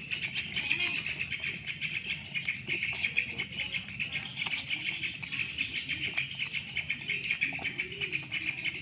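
An otter chewing a pleco catfish held in its paws: rapid, irregular wet crunching and clicking bites. A steady, high-pitched buzzing trill runs underneath throughout.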